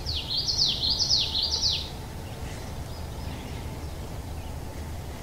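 A small songbird singing a quick run of about six high, down-slurred notes that ends about two seconds in, over steady low background noise.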